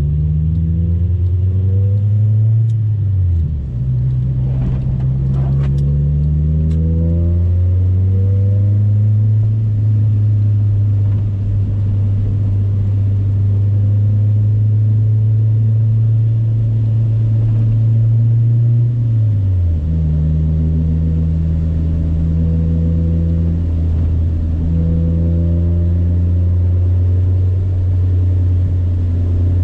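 Honda Civic EK coupe's engine running steadily while driving, with a low droning note. The pitch dips briefly about three seconds in and settles lower a little before twenty seconds, as with a change of revs. A few light knocks come around five seconds in.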